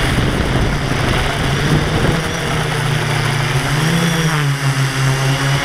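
Quadcopter's electric motors and propellers whirring close to the onboard camera, a steady multi-tone hum over a rushing hiss; from about four seconds in the pitch wavers up and down as the throttle changes.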